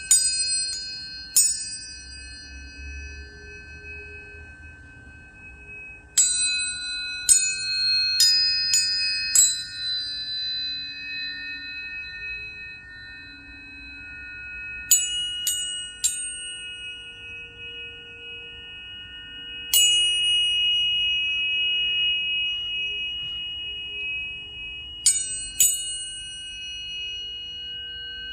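Planetary tuning forks struck again and again, in small clusters every few seconds. Each strike gives a brief bright metallic ping that settles into a long, steady pure tone, and several tones ring on together.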